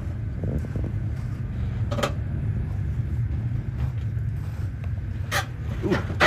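Jeep Wrangler JL crawling slowly over rocks on a steep rutted climb: a steady low engine rumble, with a few sharp clicks and creaks from the vehicle as it works over the rocks, one about two seconds in and two more near the end.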